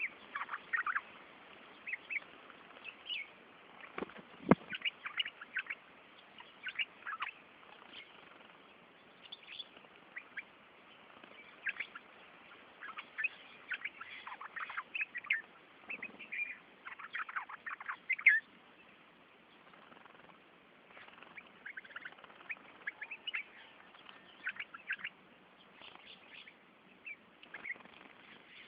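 Small birds chirping: many short, quick calls, overlapping in bursts, with one sharp knock about four seconds in.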